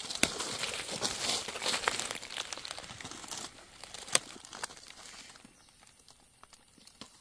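Dry leaf litter on the forest floor crackling and rustling as it is handled and trodden while mushrooms are picked, with a few sharp snaps. The crackle is densest for the first three and a half seconds, then grows faint.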